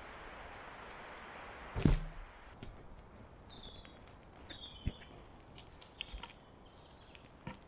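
A heavy wooden log thuds down onto the ground about two seconds in, followed by a few lighter knocks as logs are laid across a small campfire. Birds chirp briefly in between.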